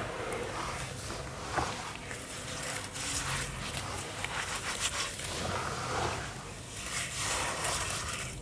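Hands squeezing and stirring thick wet charcoal-sand slurry: irregular wet squelching and sloshing that swells and fades.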